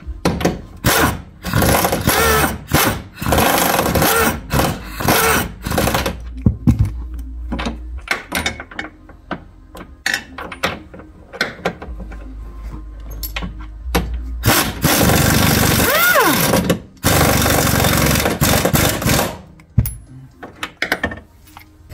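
Cordless impact wrench running in repeated bursts, then in two longer runs near the end, tightening the nuts and bolts on a new front lower control arm.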